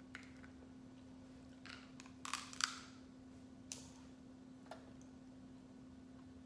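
Crab leg shell cracking and snapping as it is broken apart by hand: a few short, sharp cracks, the loudest two about two and a half seconds in, over a steady faint hum.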